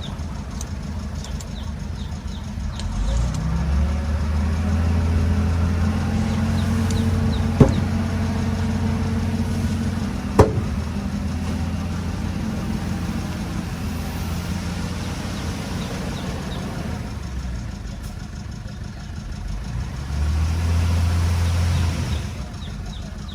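Bulldozer's diesel engine running, its note rising and holding under load twice, with two sharp metal clanks in between.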